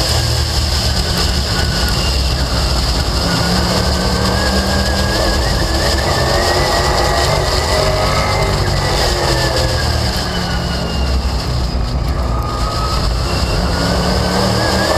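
Late Model stock car's V8 racing engine at speed, heard onboard with rushing noise over it. The engine note holds high, drops about ten seconds in as the car lifts for a turn, then climbs again near the end as it gets back on the throttle.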